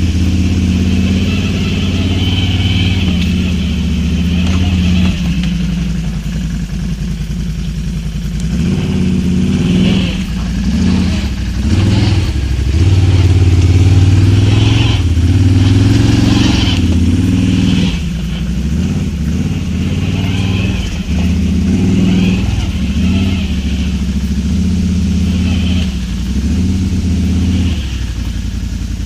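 Can-Am Outlander XMR 1000 ATV's Rotax 1000 V-twin running through RJWC dual slip-on exhausts under way, the revs rising and falling with the throttle. It eases off for a few seconds in the first third and pulls hardest about halfway through.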